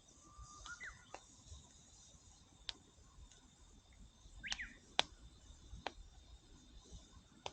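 Burning firewood in a campfire giving off sharp, scattered pops and cracks every second or so, the loudest about five seconds in. A bird gives a few short sliding chirps about a second in and again midway, over a faint steady hiss.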